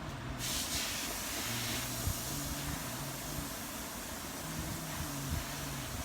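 A steady hiss that starts suddenly about half a second in, over a low hum whose pitch steps up and down.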